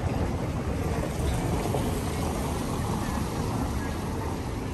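Busy city-street ambience: a steady low rumble of traffic and street noise, with faint voices of passers-by.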